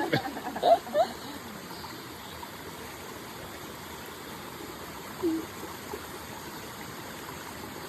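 Mountain stream rushing steadily over rocks, with a few words of voices in the first second and a short voice about five seconds in.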